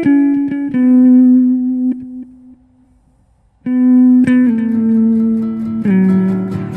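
Background music of a guitar playing slow, held single notes that step down in pitch. It goes quiet for about a second in the middle, then resumes.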